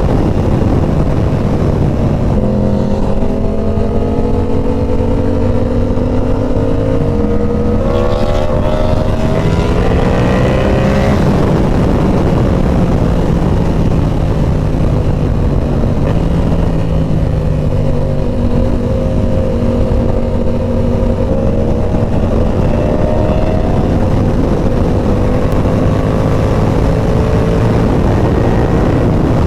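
Inline-four sport motorcycle engine running at highway speed under wind rush, its pitch rising and falling with the throttle; about a third of the way in it revs up sharply twice in quick succession.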